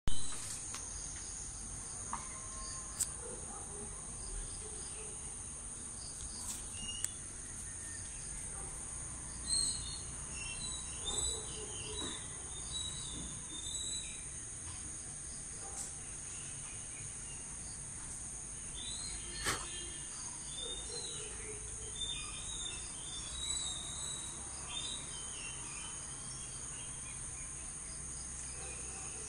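Steady high-pitched drone of insects, with scattered bird chirps and calls over it and an occasional sharp click.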